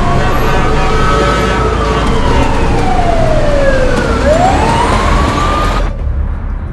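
Emergency vehicle siren wailing over a low traffic rumble. Its pitch falls slowly, then sweeps back up, and the sound cuts off abruptly near the end.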